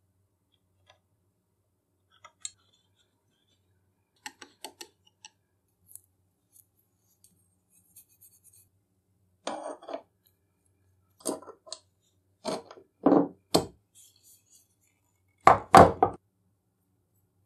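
Scattered clicks, clinks and knocks as the antique hacksaw's steel frame and small parts are handled and set down on a wooden workbench. The sounds are light and sparse at first, then heavier, with the loudest knocks near the end.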